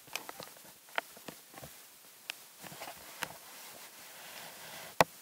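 Handling noise on a small camera: light clicks and taps at uneven intervals, with one sharp knock about five seconds in.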